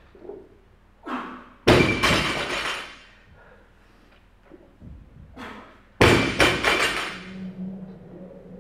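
A loaded barbell with bumper plates is dropped twice onto rubber gym flooring between lifts, about four seconds apart. Each drop lands with a heavy thud and a clattering metallic rattle of the plates and collars that rings on briefly.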